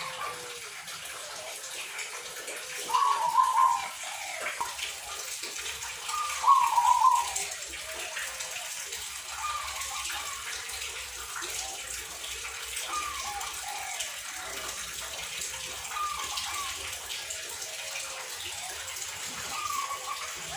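Zebra dove (perkutut) cooing: short phrases of several quick notes that come back about every three seconds, the loudest two about 3 and 6.5 seconds in, over a steady hiss.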